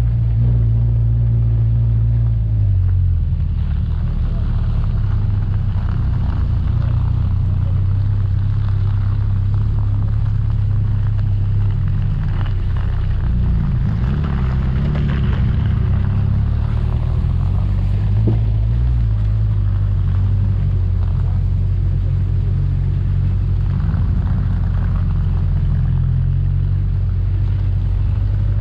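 Off-road 4x4's engine running steadily at low revs, its pitch rising and falling a little with the throttle, with scattered knocks and rattles from the vehicle over the rough track.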